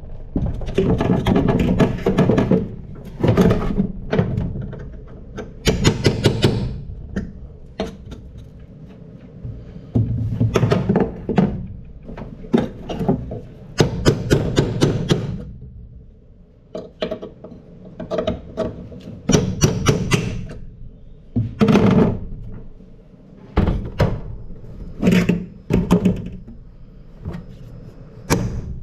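Irregular hammer blows, knocks landing in quick clusters with short pauses between: rivets being punched out of an aluminum jon boat's transom and support.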